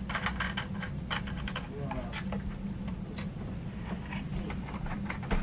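Light, irregular clicks and taps of hands handling a wooden tabletop box easel and the canvas panel on its ledge, over a steady low hum.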